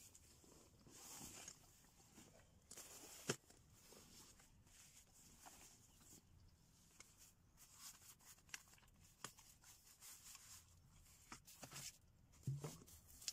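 Faint rustling of backpack fabric and gear being handled, with scattered small clicks and one sharper click about three seconds in.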